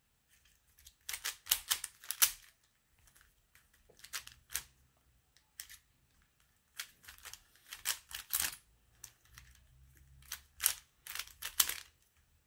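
A 3x3 Rubik's Cube being turned by hand during a solve: its plastic layers click and clack in quick runs of turns, four groups in all with short pauses between them.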